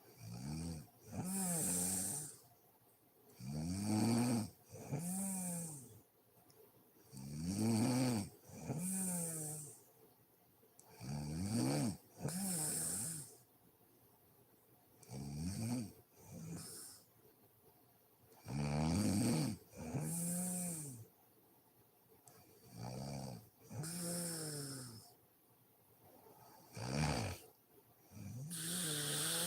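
A woman snoring in her sleep, a slow, regular cycle about every four seconds: a pitched, rattling snore on one breath, followed by a hissing breath.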